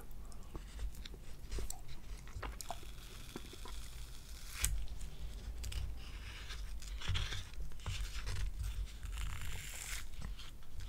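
Close-miked eating of chocolate mousse: chewing with scattered sharp clicks, the loudest about four and a half seconds in.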